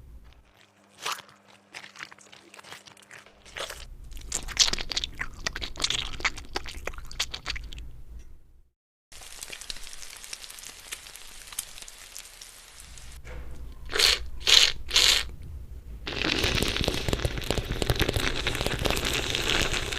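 A run of different sound effects: a low hum with scattered clicks, then crunching and crackling, a steady hiss lasting about four seconds, three loud sharp hits in quick succession, and dense crackling to the end.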